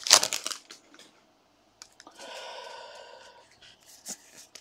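Handling of a freshly opened pack of baseball cards. A foil pack wrapper crinkles briefly at the start. Then there is a faint rub of cards sliding against each other about two seconds in, and a few soft clicks of cards being flipped.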